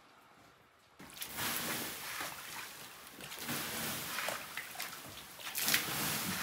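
Water sloshing and splashing in a large metal basin as it is scooped out with a plastic bowl, with sharp knocks of the bowl against the basin. It starts suddenly about a second in.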